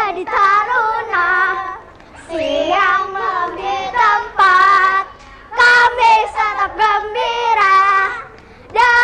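Children singing together in loud sung phrases, with short breaks between them.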